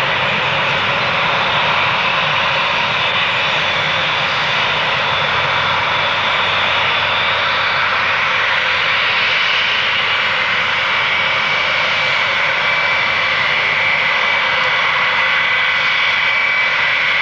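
Douglas DC-8-62F jet airliner's four Pratt & Whitney JT3D turbofan engines running at high power, a steady loud jet noise with a whining tone that rises slightly and grows stronger in the second half.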